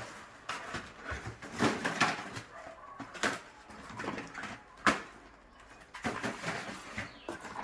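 Cardboard boxes of firecrackers being handled, shifted and set down, making a string of irregular knocks and rustles with the loudest knock about five seconds in.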